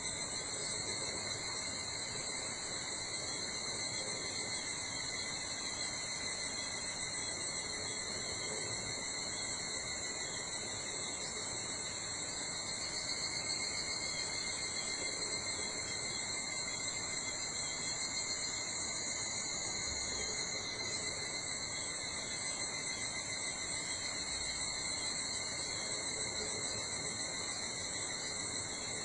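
Steady chorus of summer insects: several continuous high trills at different pitches, unbroken throughout, over a faint background hush.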